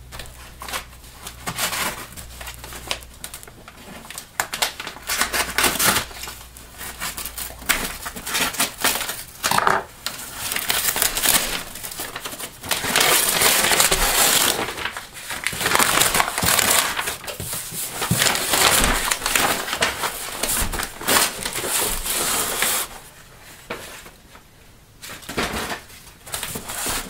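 A cardboard shipping box being cut and torn open by hand: a run of short, sharp tearing, scraping and crinkling noises, with a longer stretch of rustling and scraping about halfway through as the flaps are pulled back and an inner cardboard carton is worked out of the box.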